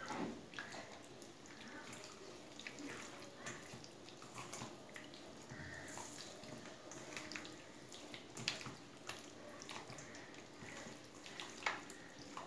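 A hand squelching raw chicken pieces through a thick yogurt-and-spice marinade in a stainless steel bowl: faint, irregular wet squishing with scattered small clicks.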